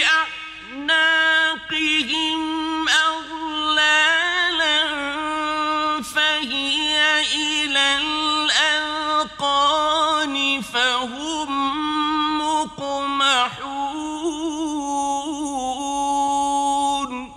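A male Quran reciter chanting verses in the slow, melodic mujawwad style: a single voice holding long notes with wavering ornaments, phrase after phrase. Near the end the voice stops and a short echo dies away.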